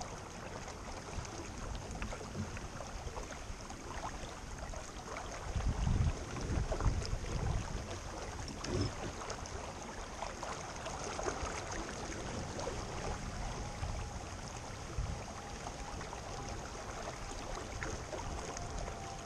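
Wind and water noise on open water, with low rumbling gusts buffeting the microphone about five to eight seconds in. A faint steady hum joins about thirteen seconds in.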